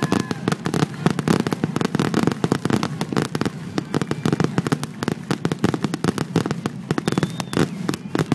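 Fireworks display: a continuous rapid run of bangs and crackles from shells bursting, many each second, with no let-up.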